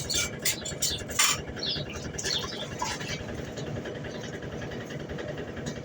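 Electrolux LTD09 top-loading washing machine running with a steady low motor hum, with a few clicks and rustles in the first three seconds.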